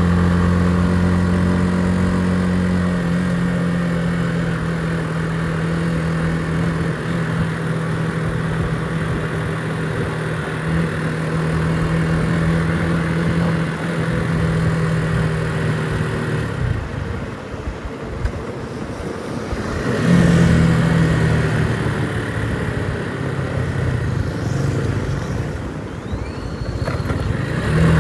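Motorcycle engine running steadily while riding, easing off for a few seconds about two-thirds through, then picking up speed again.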